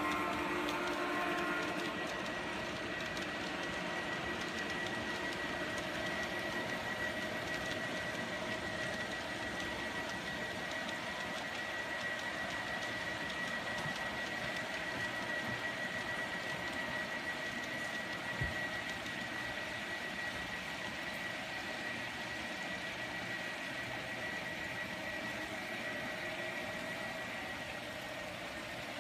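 Large-scale model train rolling along an outdoor garden railway track: a steady running noise with a thin high whine held throughout, and one sharp click about two-thirds of the way in.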